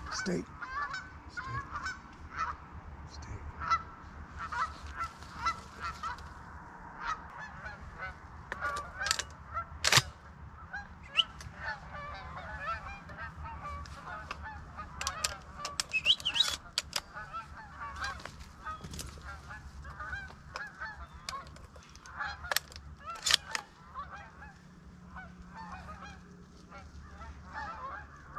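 A flock of geese honking, many calls overlapping without a break, with one sharp knock about ten seconds in, the loudest sound.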